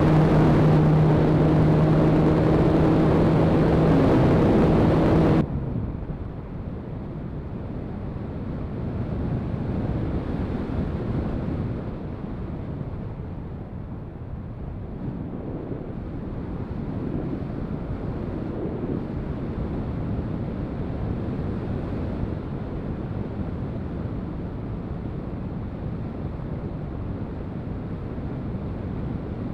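Radio-controlled glider's motor and propeller running with a steady hum, cutting off suddenly about five seconds in. After that, steady wind rush over the onboard camera as the glider glides with the motor off.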